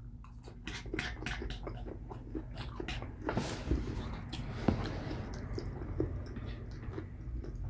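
Close-miked chewing and biting of pizza, many small crisp crunches and wet mouth clicks.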